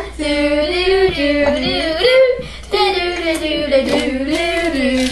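Young girls' voices singing a tune in long, held notes that step up and down in pitch, with a brief pause about two and a half seconds in.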